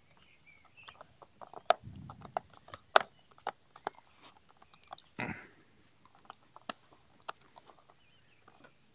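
A dog biting and chewing on a wooden stick held in a hand: scattered sharp clicks and cracks of teeth on wood, the loudest about 1.7 and 3 seconds in, with a short rough burst about 5 seconds in.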